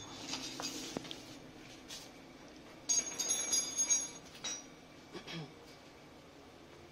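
Small metal parts clinking and rattling as they are handled: a cluster of sharp, ringing clinks about three seconds in lasting roughly a second, with a few lighter knocks before and after.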